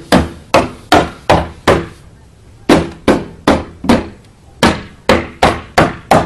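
A small mallet tapping a lightweight, translucent Storm Stoppers window-protection panel into place around a window frame. Sharp knocks come about two or three a second, in runs of four or five with short pauses between runs.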